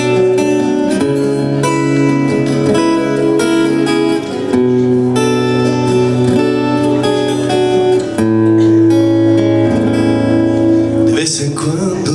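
Acoustic guitar playing a song introduction in strummed chords over held bass notes, the chord changing every few seconds. Near the end a man's voice comes in.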